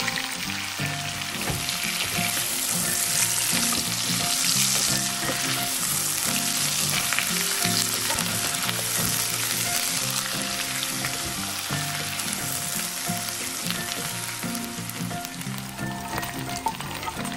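Chicken pieces and fried onions sizzling in hot oil in a pot, stirred with a wooden spatula, under background music. A short knock near the end as sliced tomatoes are slid in.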